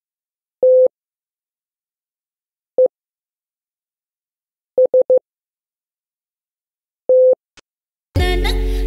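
Morse code in a steady single tone spelling "TEST": one long dah, one short dit, three quick dits, one long dah, with long gaps between the letters. Music comes in near the end.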